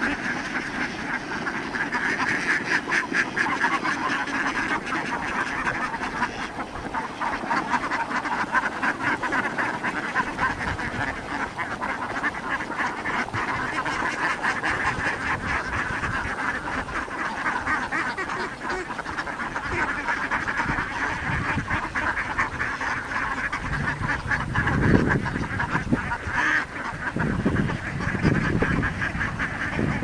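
A large flock of domestic ducks quacking all together, a dense unbroken chatter of overlapping calls. A few low rumbles come through near the end.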